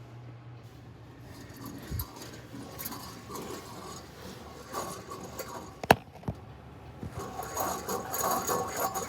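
Scraping and clinking of hand work on metal parts, with one sharp knock about six seconds in, then a rough, gritty grinding that grows louder near the end.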